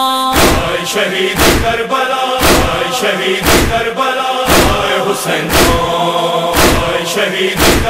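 A chorus chanting a noha lament with no clear words, over a steady beat of heavy thumps about once a second.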